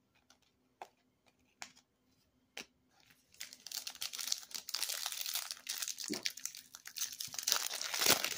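A few soft clicks as cards are handled, then from about three seconds in the plastic wrapper of a Topps Chrome trading card pack crinkling steadily as it is torn open.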